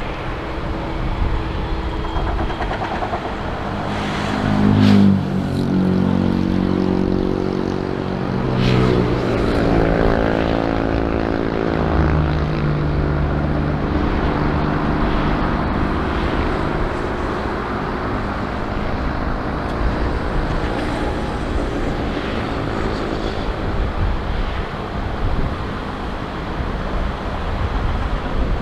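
Airliner engines running loud and steady as an aircraft passes on or near the runway. Several engine tones slide down in pitch between about four and twelve seconds in.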